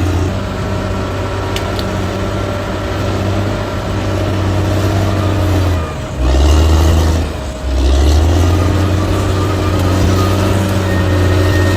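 Heavy earthmoving machine's diesel engine running steadily, with two short dips in loudness a little past the middle.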